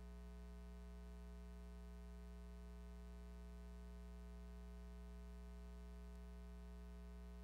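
Near silence: a steady low hum with a stack of overtones and faint hiss, unchanging throughout, with no other sound.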